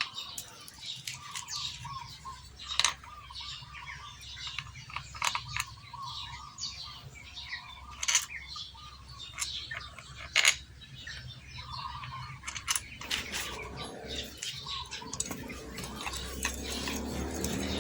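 Sharp metallic clicks and taps of hand tools working on a motorcycle engine's side cover, with birds chirping in the background. A passing motor vehicle's engine grows louder near the end.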